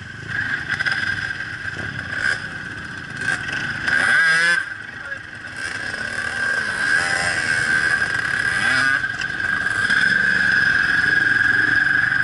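Quad bike (ATV) and dirt bike engines running in a group, with short revs. The engine noise peaks briefly about four seconds in and is louder and steady from about ten seconds in.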